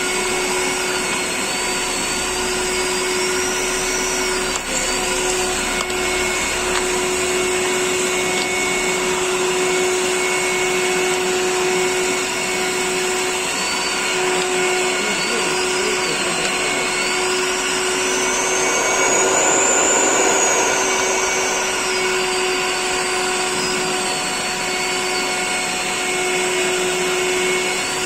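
Dustprom PP-220/15.1-1.5 industrial vacuum cleaner running steadily while sucking up debris. Under the motor hum a high whine wavers in pitch, rising and growing louder about two-thirds of the way through, then settling back.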